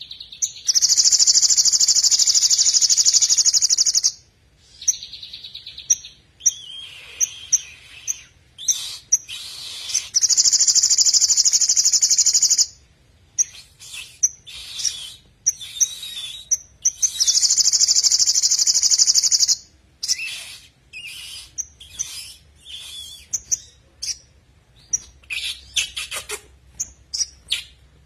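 Male olive-backed sunbird singing in a wire cage: three long, fast, high trills of about three seconds each, loud, with short sharp chips between them and a quicker run of chips near the end.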